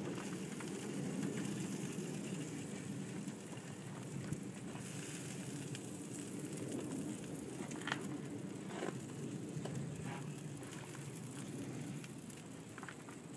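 Hickory-and-charcoal fire in an offset smoker crackling and hissing steadily, with a few faint clicks near the middle and end.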